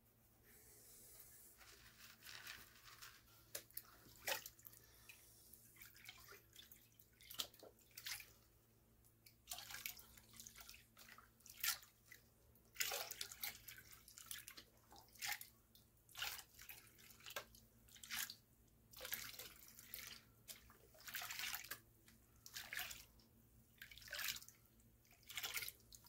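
Water sloshing and splashing as a plastic gold pan is dipped and swirled in a tub of water, washing light material out over the pan's lip. The splashes come unevenly, about one or two a second.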